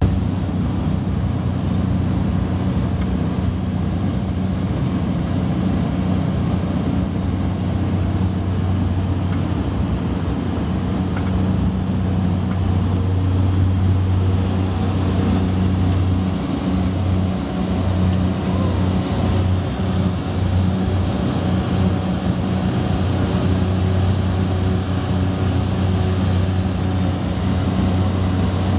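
Small propeller plane's engine and propeller running at takeoff power, heard inside the cockpit. A loud, steady drone with a deep hum, held through the takeoff roll and climb.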